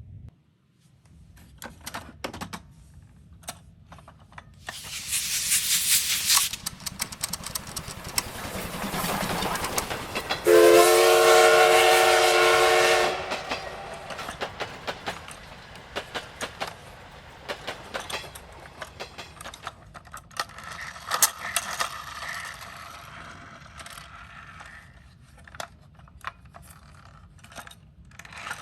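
A toy's electronic sound effect: hissing like escaping steam, then a steady steam-train whistle held for about two and a half seconds. Small plastic clicks and rattles come and go throughout.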